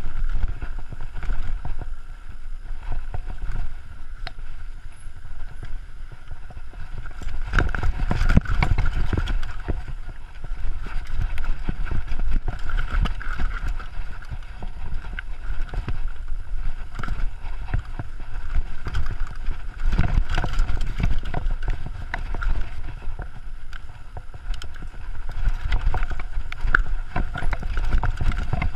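A downhill mountain bike running over a rough dirt-and-rock trail, heard from a chest-mounted GoPro: a steady low rumble of tyres and wind with frequent knocks and rattles from the bike over bumps. It gets louder around a third of the way in, and again about two-thirds in.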